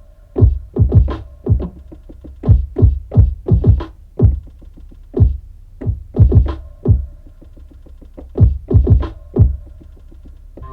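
Electronic instrumental beat: drum machine hits in an uneven pattern over a held synth tone and a steady low bass.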